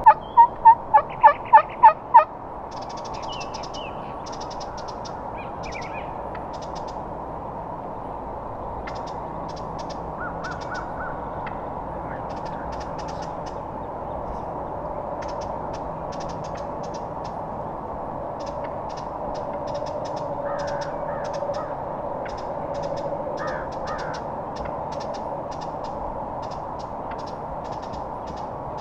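Turkey yelping: a loud run of about eight evenly spaced yelps in the first two seconds. Faint songbird chirps and calls follow over a steady outdoor background.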